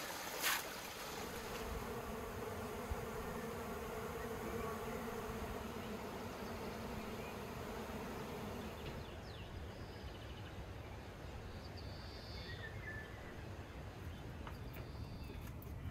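Honeybees buzzing around their hives, a steady hum that fades out about nine seconds in, with faint high chirps after it. A brief sharp sound near the very start is the loudest moment.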